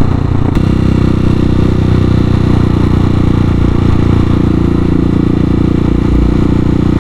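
Hawk 250 dual-sport motorcycle's single-cylinder engine running at a steady, even speed, with no revving.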